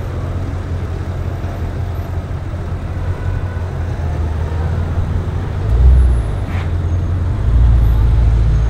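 Audi RS6 C7's twin-turbo V8 with an aftermarket Milltek exhaust, running at low revs with a deep steady rumble as the car rolls out. There is a brief swell in revs about six seconds in, and it grows louder near the end as the car passes close by.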